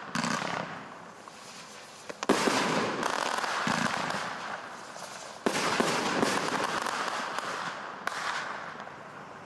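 Skycrafter Twisted Aftershock 72-shot fan barrage cake firing: four sharp shots, about two to three seconds apart, each followed by a couple of seconds of dense noise that dies away. The last shot is the weakest.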